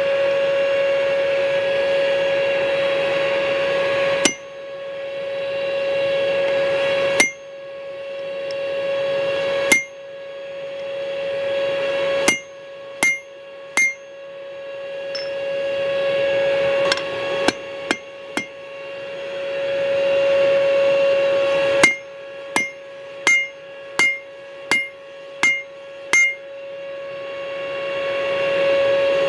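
Hand hammer striking hot steel on an anvil while forging a bottle opener: sharp ringing blows, a few seconds apart at first, then in quicker runs of several near the end, over a steady ringing tone.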